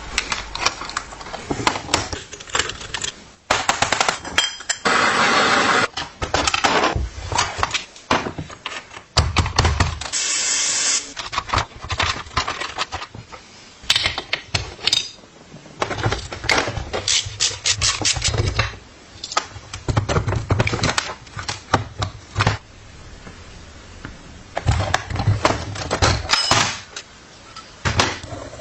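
Restoration work on an old steel bicycle: irregular clanks, taps and knocks of hand tools on metal parts. Two stretches of scraping or hissing noise break in, the brighter one about ten seconds in.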